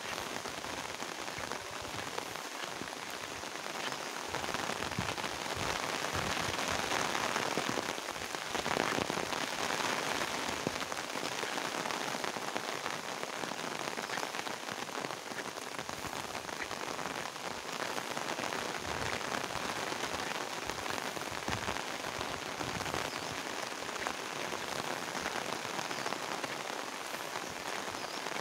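Steady rain falling on the surrounding foliage and fields, growing a little heavier for several seconds near the middle.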